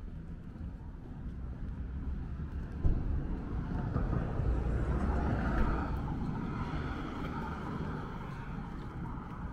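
Road traffic: a vehicle passes along the street, its engine and tyre noise swelling about three seconds in, peaking around the middle and fading away, over a steady low rumble.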